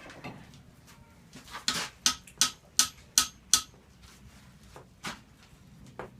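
Blacksmith's hammer striking metal on an anvil: a run of six quick, ringing blows in about two seconds, then two lighter knocks.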